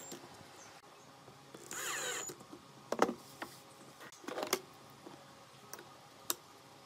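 Cordless drill whirring in a short burst, driving a screw into a small brass hinge about two seconds in. Sharp knocks and clatter follow as the drill and wooden board are set down on the wooden workbench, the loudest about three seconds in, then a few lighter clicks.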